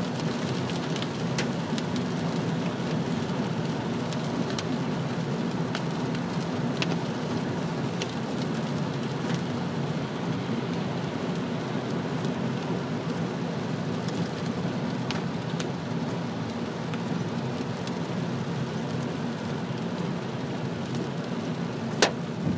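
Rain pelting a moving car, heard from inside the cabin over steady road noise, with scattered sharp ticks of hailstones striking the roof and windscreen and one harder hit near the end.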